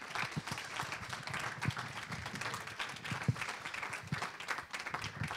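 Audience applauding, a steady patter of many hand claps.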